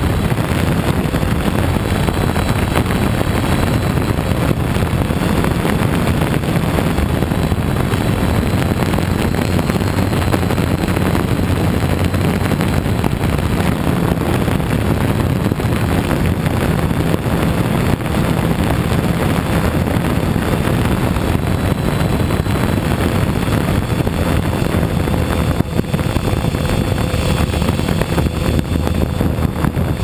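Octocopter's electric motors and propellers droning steadily in flight, heard from the camera on board, with wind buffeting the microphone.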